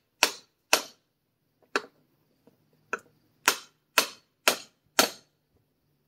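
Ball-peen hammer striking the seized shaft of a Chevy small-block oil pump used as a supercharger, driving it out of its housing: eight sharp metallic blows, spaced out at first, then five at a steady two a second. The shaft is seized tight in the housing, galled from getting hot.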